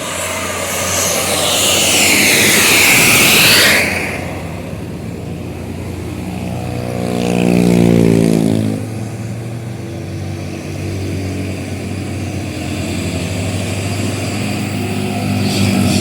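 Heavy diesel vehicles passing on a hill road. A loud rushing pass-by comes about a second in, then a vehicle's engine passes with its pitch dropping about halfway through, and an engine keeps running steadily afterwards.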